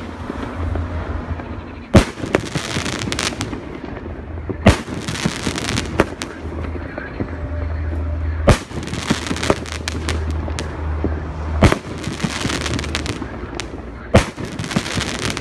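A 25-shot 2.5-inch shell firework battery firing, with a sharp bang every two to four seconds. Each bang is followed by a hiss lasting about a second, with fainter pops in between.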